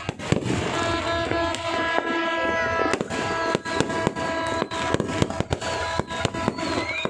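Fireworks going off in rapid, irregular bangs, several a second, over music with held notes playing throughout.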